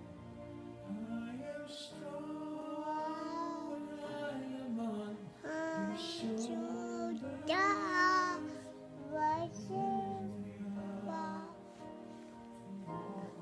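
A baby vocalizing in a sing-song way: drawn-out, gliding pitched sounds, rising into a louder, higher, wavering passage about eight seconds in.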